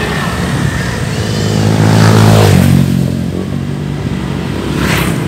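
Motorcycle engine running while riding along a road, with wind noise over the microphone; the engine note grows louder about two seconds in and shifts pitch half a second later.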